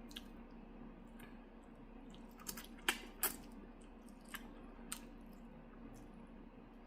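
A person chewing food close to the microphone, with scattered wet mouth clicks and smacks, the loudest about three seconds in. A faint steady hum runs underneath.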